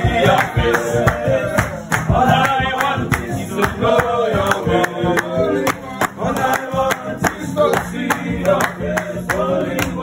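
Informal live worship singing: a man sings the lead with other voices joining, over acoustic guitar and a steady percussive beat.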